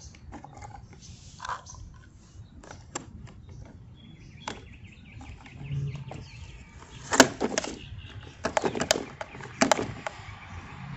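Knocks and clicks of plastic toy garbage trucks being handled, irregular and sharp. The loudest cluster comes about seven seconds in and another from about eight and a half to ten seconds in.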